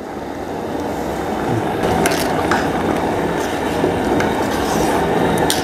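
Steady low rushing of a gas burner under a large aluminium pot of thick, bubbling tomato jam, growing a little louder. A steel ladle scrapes and clicks against the pot a few times as the jam is stirred.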